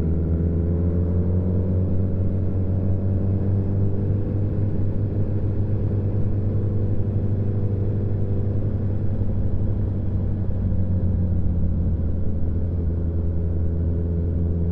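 Motorcycle engine running steadily under way, its pitch rising a little over the first few seconds and then holding steady.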